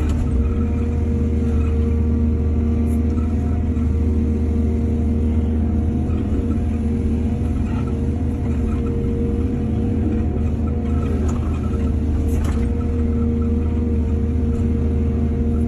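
Excavator's heavy diesel engine running steadily at a constant speed, with a brief faint knock about twelve seconds in.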